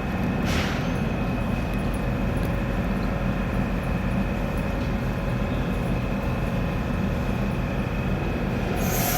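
A Docklands Light Railway train at an underground platform with a steady low rumble and hum. A brief hiss comes about half a second in, and a higher hiss comes near the end.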